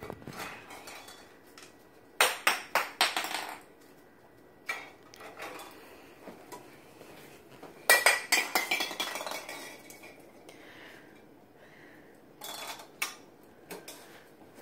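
Metal pots and pans in a low kitchen cupboard clanking and clattering as a toddler rummages among them, in several short spells of clanks: about two seconds in, about eight seconds in and again around twelve seconds.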